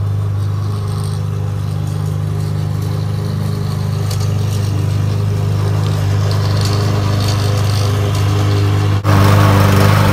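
Gas lawn mower engine running steadily while cutting grass; about nine seconds in the sound breaks off sharply and comes back louder and harsher.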